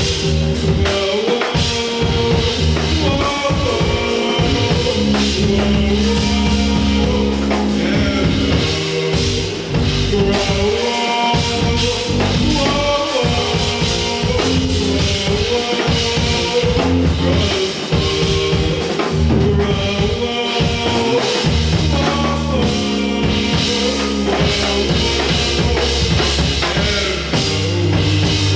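Band playing live: a full drum kit with kick drum drives a steady beat under sustained low bass notes and pitched melodic lines.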